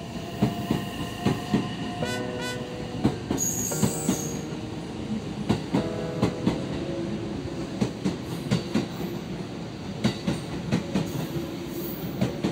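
Electric multiple-unit train pulling out of a station, its wheels clacking over rail joints in quick, uneven pairs, over steady running noise and a humming tone.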